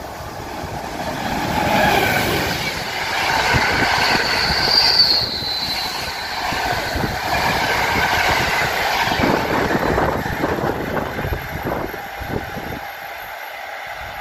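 PKP Intercity passenger train running through a station: loud rumble of wheels on rail, with a brief high wheel squeal about five seconds in. Rapid clacking over the rail joints follows as the coaches pass, and the sound falls away near the end as the train moves off.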